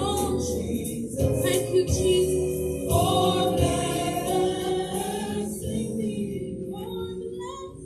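Gospel choir singing with sustained accompaniment, the song dying away near the end.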